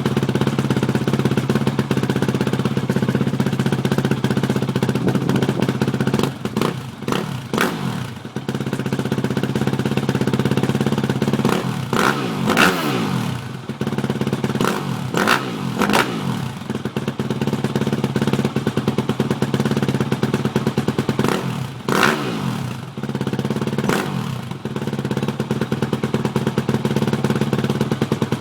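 Yamaha YZF 250 motorcycle engine idling steadily, blipped on the throttle several times. Each rev rises sharply and then falls back to idle, some in quick pairs.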